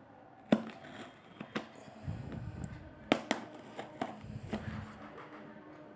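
A cardboard delivery box being handled and opened by hand: several sharp knocks and clicks with rustling and scraping of the packaging between them.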